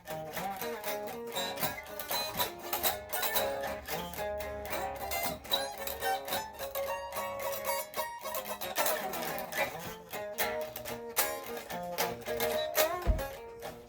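Instrumental music led by a plucked string instrument playing quick, stepping notes. There is a single low thump near the end.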